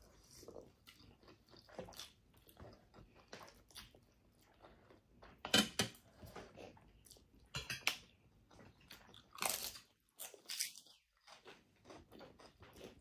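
Close-miked mouth sounds of people eating noodles and seafood: chewing and biting with irregular short crunches and clicks, a few louder ones in the middle.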